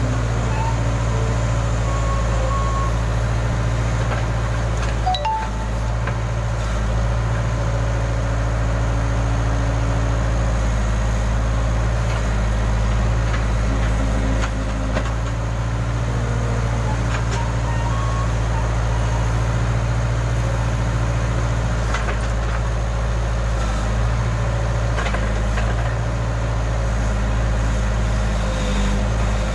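Case backhoe loader's diesel engine running steadily, with a few faint metallic clinks.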